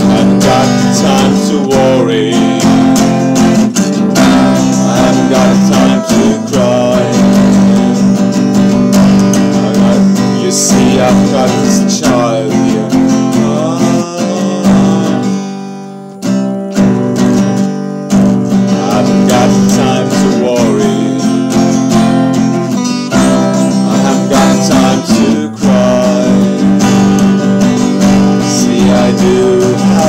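Acoustic guitar strummed steadily, with a man's singing voice over it. The playing drops away briefly about halfway through, then picks up again.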